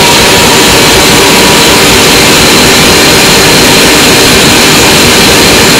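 CT scanner gantry spinning at speed with its covers off: a loud, steady rushing whir with a thin high tone running through it.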